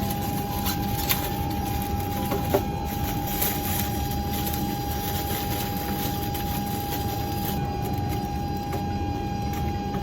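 Steady low rumble of a moving vehicle's interior with a constant high hum running through it and a few faint clicks.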